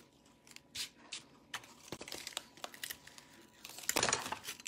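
Cardboard triangles being handled and taped together: a series of short rustles and scrapes, then a louder, longer rasp of tape and cardboard near the end.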